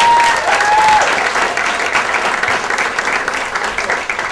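Crowd applauding, with a brief high whoop from one person at the start. The clapping tapers off near the end.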